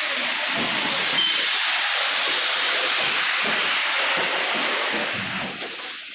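A loud, steady hiss that eases off near the end.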